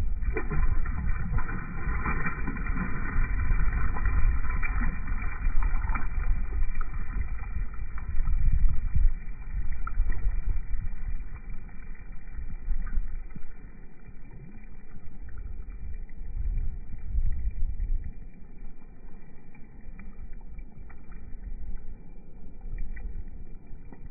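Wind rumbling and buffeting on a phone microphone, with water sloshing around a hand in shallow, grassy lake-edge water. It is louder in the first half and eases off later.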